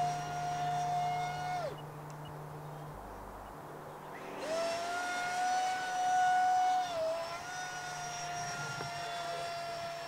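Electric ducted fan of a 3D-printed Planeprint Seagull RC glider whining steadily in flight. It winds down about two seconds in, is gone for a couple of seconds, then spools back up and runs on, with a brief dip near the seven-second mark.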